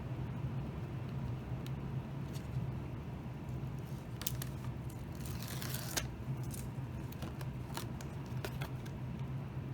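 Paper backing being peeled off strips of double-sided tape stuck to the back of a thin metal sheet: small ticks and crinkles, with a longer rasping peel about five to six seconds in. Behind it runs the steady noise of pouring rain.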